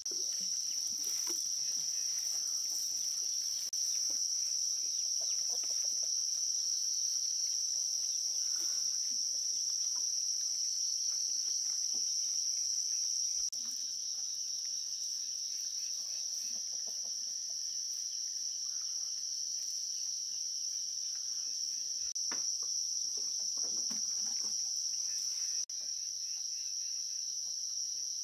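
Insects droning steadily in a high-pitched chorus, with faint scattered knocks and rustles underneath.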